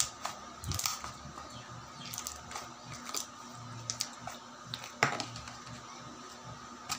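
Glittery slime being kneaded and squeezed by hand, giving irregular sticky clicks and pops, the loudest about five seconds in.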